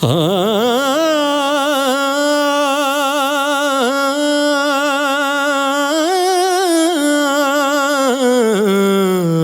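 A solo singer holds one long melismatic note of a Punjabi song with wavering vibrato, after gliding up into it at the start. The note steps up briefly about six seconds in, then settles back down near the end. The vocal is recorded through a Lauten Audio LA-320 tube condenser microphone and processed.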